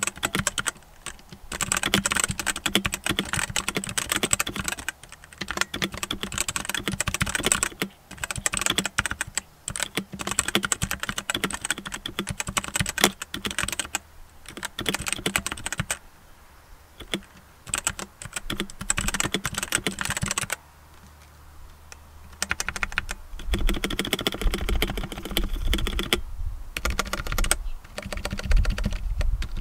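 Redragon K530 60% mechanical keyboard with brown tactile switches being typed on in fast runs of key clacks. There are short pauses, and a longer gap about two-thirds of the way through.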